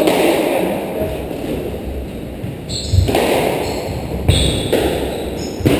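Squash rally: several sharp hits a second or so apart as the ball is struck by rackets and smacks off the court walls, with brief high squeaks of shoes on the wooden floor.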